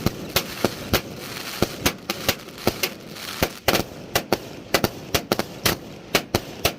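Multi-shot fireworks cake firing in repeating bursts: sharp reports a few times a second, irregularly spaced, over a steady crackle.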